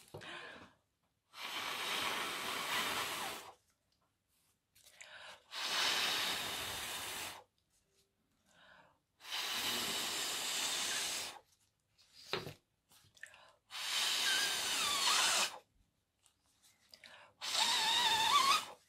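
A person blowing hard by mouth across wet poured acrylic paint on a canvas to spread it into a bloom, in five long blows of about two seconds each with pauses for breath between them. The last blow carries a wavering squeaky whistle.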